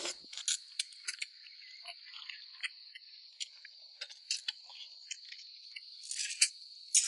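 Steady high-pitched chirring of insects such as crickets, with scattered short clicks and crunches of eating over it, a few of them louder near the end.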